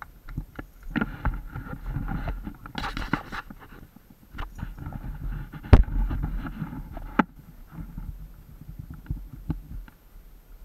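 Horses' hooves clopping at a walk: an uneven run of knocks, with a brief rushing noise about three seconds in and one sharp, loud knock near the middle.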